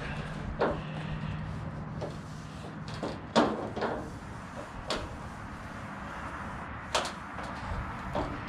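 Corrugated sheet-metal roofing panels being shifted and pressed into alignment on concrete, giving about five sharp knocks and clanks, the loudest about three and a half seconds in.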